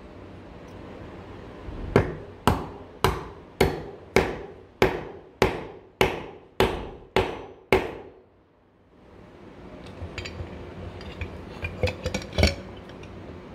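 A hammer strikes a Japanese oire nomi chisel eleven times at an even pace, about two blows a second, each blow ringing briefly. Near the end come a few light clinks as the chisels are set into a glass jar.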